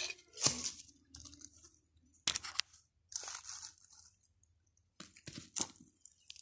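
Knife shaving thin bamboo strips: intermittent short scraping strokes, with a few sharp cracks about two seconds in and again about five seconds in.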